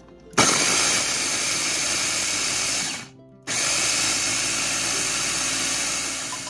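Electric blender grinding fresh garlic, run in two bursts of about two and a half seconds each with a short stop between.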